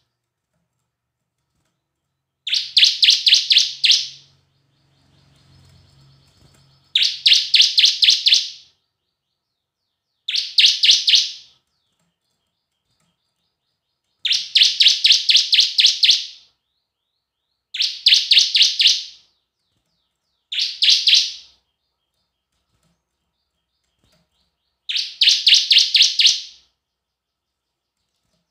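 Bar-winged prinia (ciblek) singing in short bursts of fast, evenly repeated high chirps, about four to five notes a second. There are seven bursts, each a second or two long, with brief silences between them.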